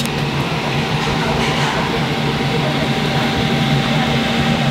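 Steady low mechanical hum with a thin, steady whine above it and a noisy hiss, unchanging throughout; it sounds like a fan or motor running at a food stall.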